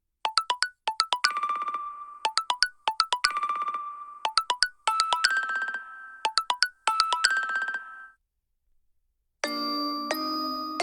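OnePlus 7T stock ringtone playing: a melody of quick, short notes in repeated phrases, ending about eight seconds in. After a brief pause, another ringtone with fuller, sustained notes starts near the end.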